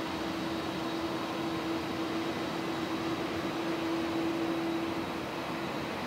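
Airbus A330's jet engines at low taxi thrust: a steady rushing noise with a held humming tone.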